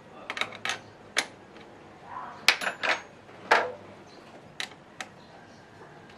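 Hand tools and metal battery terminal parts clinking and clattering in an irregular run of about a dozen sharp clicks, the loudest about two and a half and three and a half seconds in.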